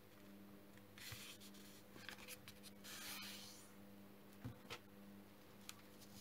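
Faint rustling and sliding of a sheet of origami paper as it is folded corner to corner and the crease smoothed down, in a few short swishes with a couple of light taps, over a low steady hum.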